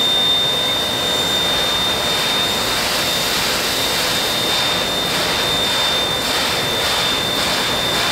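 CK124 steam locomotive, a C12-class tank engine, hissing steam with a thin steady whistling tone. From about three seconds in come rhythmic chuffs of steam about twice a second as it gets under way, with steam puffing from the cylinder cocks by the driving wheels.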